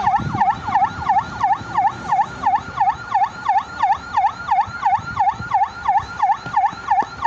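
Emergency-vehicle siren sounding a fast yelp: its pitch sweeps down and back up about three and a half times a second, loud and steady.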